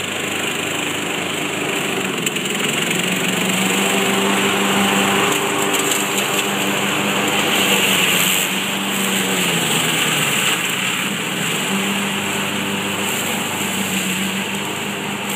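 Riding lawn mower's small engine running steadily under way; its note drops away about ten seconds in and picks back up a couple of seconds later.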